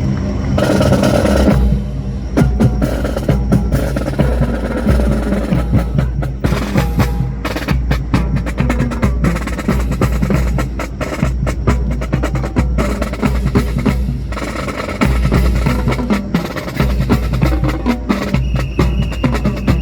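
A drill team handling rifles: many sharp wooden clacks and knocks, some single and some in quick rippling runs, over a steady low rumble.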